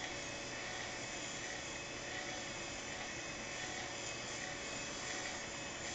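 Grimes tandem oscillating aircraft anti-collision beacon running, its drive motor giving a steady whir with hiss and faint steady tones.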